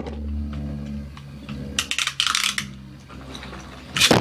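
Spinning Beyblade tops whirring with a metallic clatter: a steady hum that slowly fades, a short scraping rush about two seconds in, and a sharp knock near the end.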